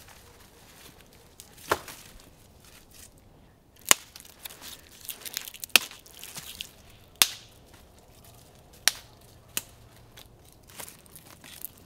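Dry branches snapped by hand for kindling: about seven sharp snaps a second or two apart, with lighter crackling and rustling of twigs between them.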